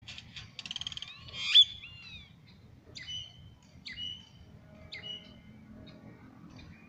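Great-tailed grackle (clarinero) calling. A fast run of dry clicks leads into a loud rising whistle, followed by three calls about a second apart, each a sharp downward note running into a short whistle.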